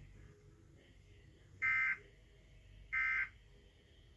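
Emergency Alert System end-of-message data tones played through a TV: two short, identical bursts of digital data about 1.3 s apart, signalling the end of the warning message.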